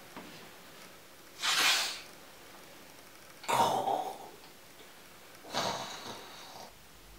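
A person's breath sounds: three short, loud, breathy bursts about two seconds apart, the second with a brief low, voiced edge.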